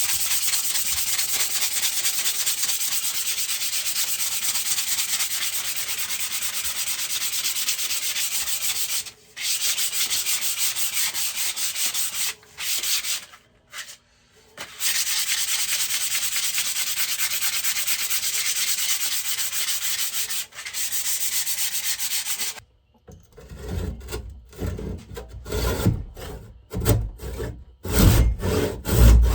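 Belt sander grinding down a wooden axe handle, a steady abrasive hiss that pauses briefly twice and stops about three-quarters of the way through. After it stops come irregular scraping strokes on the wood.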